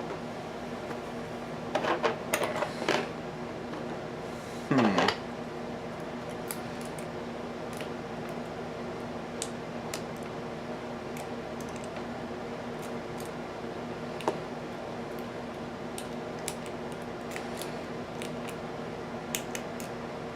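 Small metallic clicks and scrapes of lock picking tools working the pins of an American Series 700 padlock. There are louder clattering scrapes about two to three seconds in and again just before five seconds, and faint sharp ticks scattered throughout, over a steady low hum.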